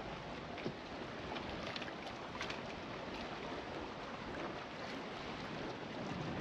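Steady rush of wind and water around a sailboat at anchor, with a few faint scattered ticks.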